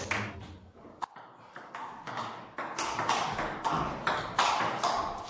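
Table tennis ball clicking sharply off the bats and the table in a rally, the clicks coming thick and fast from about halfway in.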